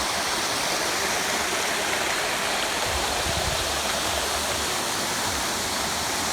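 Waterfall and mountain stream water rushing steadily over rocks at the top of the falls, a dense even roar of water.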